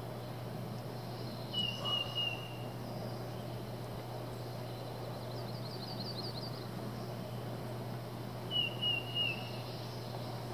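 Outdoor ambience with a steady low hum: a bird gives a short high call about two seconds in and again near the end, with a faint quick trill of several notes in between.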